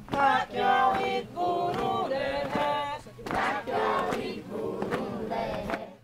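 A group of people's voices shouting and calling out together, high-pitched and overlapping, in several loud bursts with short breaks between them.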